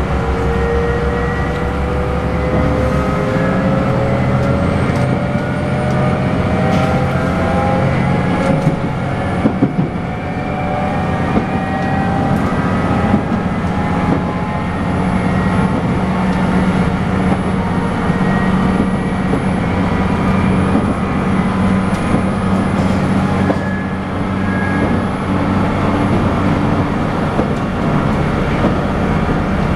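Diesel engines of a JR Shikoku N2000 series express railcar working under load, heard inside the passenger cabin: a steady, loud engine drone with a whine that rises in pitch over the first ten seconds or so as the train gathers speed, mixed with rail running noise.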